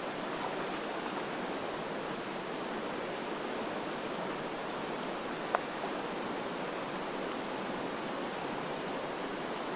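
River water flowing, a steady even rush, with one sharp click about halfway through.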